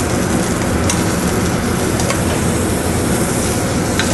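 Pistachio butter sizzling steadily in a sauté pan on a gas range, over a constant low rumble, with a couple of light utensil clicks.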